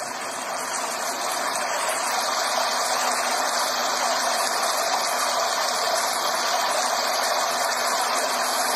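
Recorded water rushing with a steady, even hiss, fading in over the first couple of seconds.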